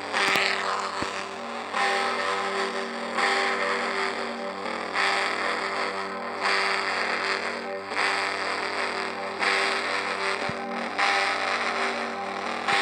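Two church bells being rung in a steady rhythm, about one stroke every second and a half, each stroke ringing on under the next.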